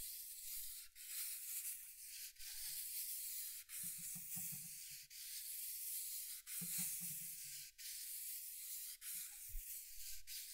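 Sandpaper on a hand sanding block rubbed back and forth along the trailing edge of a hydrofoil mast: a steady scratchy hiss in strokes of a little over a second each, rounding off the edge to stop the foil whistling when ridden.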